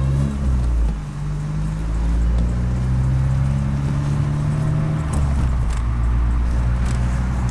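Car engine and exhaust droning steadily while driving, the pitch shifting about a second in and again around five seconds.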